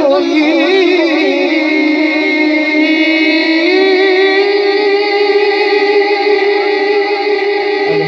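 A naat reciter's voice singing one of the names of Allah without words picked up, ornamented and wavering for about three seconds, then holding one long steady note to the end.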